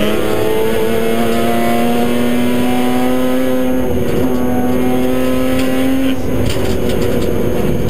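BMW M3 rally car's engine heard from inside the cabin, pulling hard with its pitch climbing slowly along a straight. About six seconds in the steady note breaks off and a rougher, noisier sound follows.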